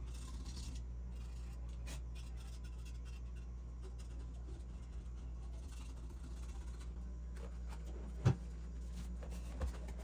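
A metal spoon scraping around the inside of a metal ring pudding pan to loosen a baked pudim (flan) from its sides before it is turned out, with a single knock about eight seconds in. A steady low hum runs underneath.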